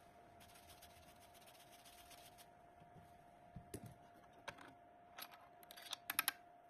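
Quiet, with a faint steady hum and a few scattered light clicks and taps, ending in a quick cluster of sharp clicks about six seconds in, which is the loudest part.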